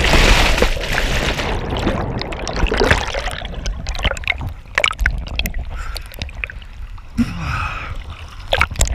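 A parasailer's splashdown heard from a body-worn action camera: a loud rush and bubbling of water as the camera goes under, easing after about three seconds into sloshing water with scattered sharp drips and clicks as it comes back to the surface.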